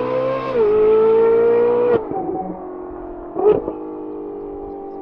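Ferrari 458's flat-plane V8 on a Kline Innovation exhaust at high revs under hard acceleration, a high steady scream that drops in pitch once as it shifts up. About two seconds in it falls suddenly to a quieter, steady drone, with a brief louder burst of noise near the end.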